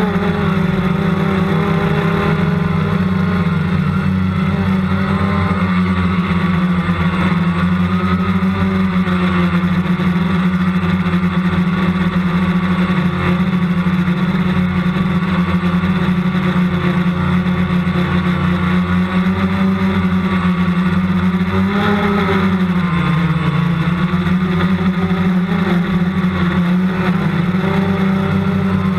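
A multicopter's motors and propellers give a steady, loud buzzing hum. Its pitch wavers slightly as the craft manoeuvres and dips and rises briefly about three-quarters of the way through.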